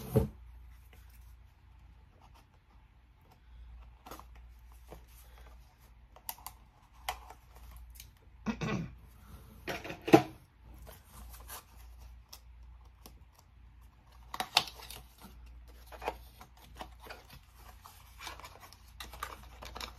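Small product packaging being opened by hand: scattered rustling, scraping and tearing with short clicks and knocks, the loudest a sharp click about ten seconds in.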